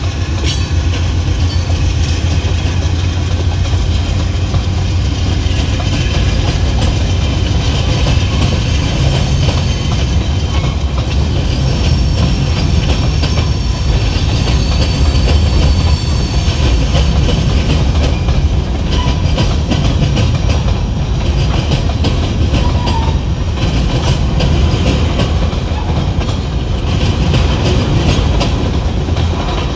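A train rolling past close by: a steady low rumble with rapid, continuous clatter of wheels over the track, holding the same level throughout.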